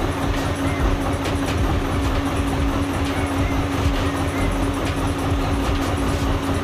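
A machine running steadily: a continuous rumble with a steady hum, unchanging throughout.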